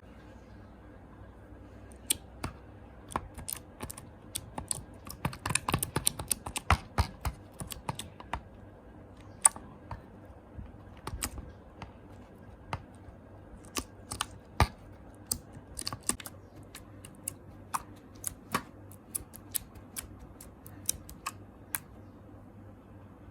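Irregular sharp clicks and taps, densest about five to eight seconds in.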